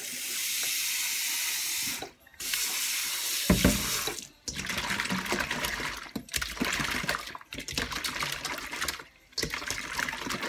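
Kitchen tap water running steadily into a stainless steel bowl of fish in the sink, breaking off briefly about two seconds in, with a knock against the bowl shortly after. From about four seconds on, hands scrub and swish the salted fish around in the water in short splashing bouts, rinsing off the slimy water.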